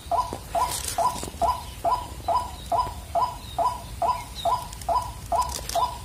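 White-breasted waterhen calls: a short, identical note repeated evenly about two and a half times a second without a break.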